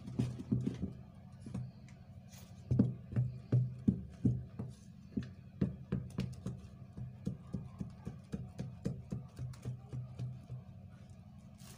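Thick liquid soap being stirred with a stick in a plastic bowl: irregular knocks and scrapes of the stirrer against the bowl, two or three a second.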